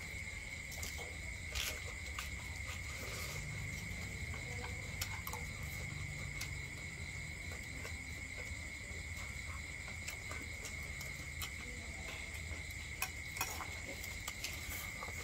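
Steady high-pitched insect chorus, with scattered light clicks and taps over it.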